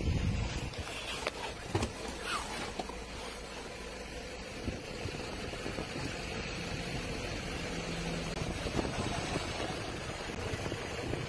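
Vehicle engine idling steadily, with a few faint clicks in the first couple of seconds.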